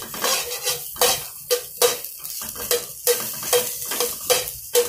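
A spoon stirring chopped okra in a nonstick frying pan, knocking and scraping against the pan about two or three times a second, each knock ringing briefly.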